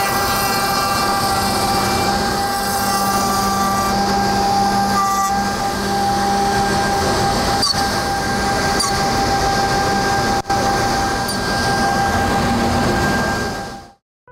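Felder G680 edgebander running with a panel feeding through it: a steady mechanical whir of its motors with several steady tones and a few light clicks, stopping abruptly near the end.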